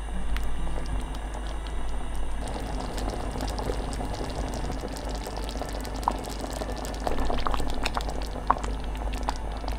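Thick curry sauce bubbling at a low simmer in a pot, with many small pops of bursting bubbles and now and then a silicone spatula stirring through it.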